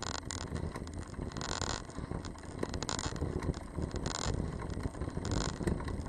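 Wind rushing over a bicycle-mounted camera's microphone on a fast road descent, over a low rumble of bike tyres on asphalt. A hiss swells briefly about every second and a half.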